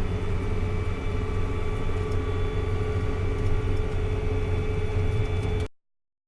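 Tractor engine running steadily, a constant hum with a fixed pitch. The sound cuts off abruptly near the end.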